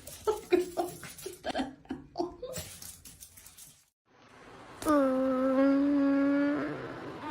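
Short bursts of laughter, then a single long, steady, held call about a second and a half long, the loudest sound here.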